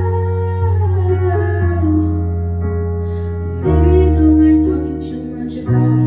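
A young woman singing a song into a handheld microphone, over an instrumental accompaniment of sustained chords that change every one to two seconds.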